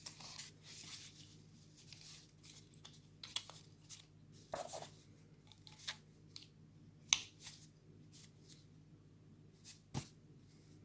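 Faint, scattered clicks and short scrapes of small-scale hand work on a die-cast toy car's parts, with a sharper click about seven seconds in and another about ten seconds in, over a steady low hum.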